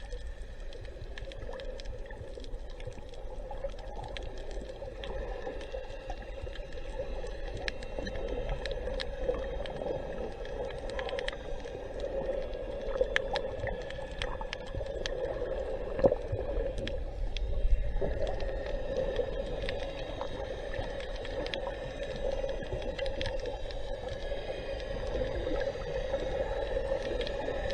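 Underwater sound picked up by a camera beneath the water: a steady muffled wash of moving seawater with many scattered sharp clicks and crackles, a few louder knocks near the middle.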